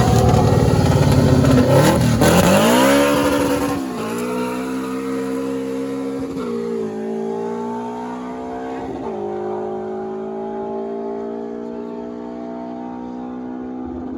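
Car engine at full throttle accelerating hard away through the gears, loud at the launch, then climbing in pitch and dropping sharply at each of three upshifts while it fades into the distance.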